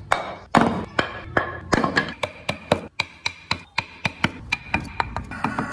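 A hammer tapping a chisel into wood, about four even strikes a second, each with a short ring.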